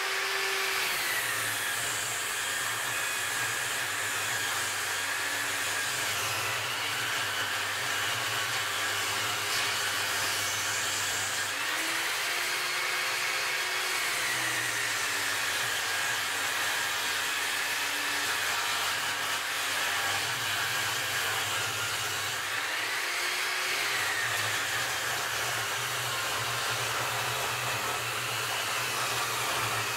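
Cheap table saw ripping a long black locust plank: the motor and blade run with a steady whine, and the pitch sags and recovers a few times as the cut loads the blade.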